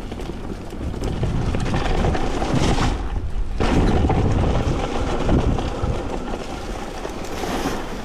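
Mountain bike riding along a leaf-covered forest singletrack: wind rumbling on the camera microphone, with the tyres rolling and rustling through dry fallen leaves.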